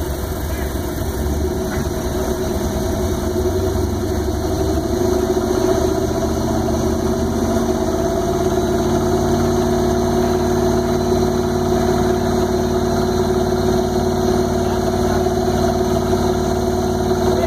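Lifted truck's engine running steadily during a winch recovery. About four seconds in, its pitch climbs gently for a few seconds, then holds at the higher speed.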